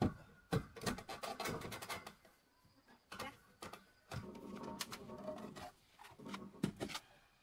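Steel rectangular-tube railing rattling, clicking and scraping as it is pushed and settled through the slots of wooden posts. A dense run of knocks comes in the first two seconds, scraping follows midway, and a single sharp knock comes near the end.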